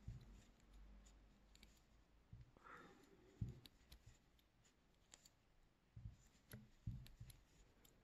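Quiet handling sounds of crocheting: faint clicks and rustles of a metal crochet hook working cotton yarn into single crochet stitches, with a few soft thumps, the loudest about three and a half seconds in.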